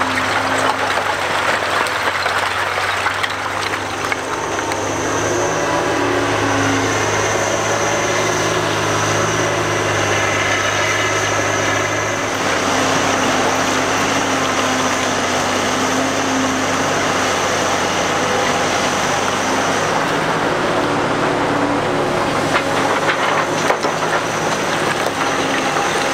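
Cat 245B hydraulic excavator working broken rock: its big diesel engine runs steadily under load, the pitch shifting as the hydraulics work. A high whine sounds from about five seconds in until about twenty seconds.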